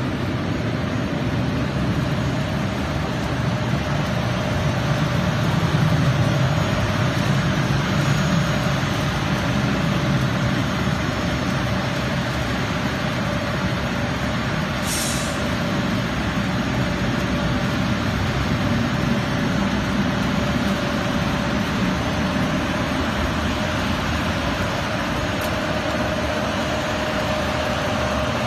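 Tea winnowing machine running steadily: its blower and the bucket elevator feeding it make a constant mechanical whirr with a steady hum. A brief hiss sounds about halfway through.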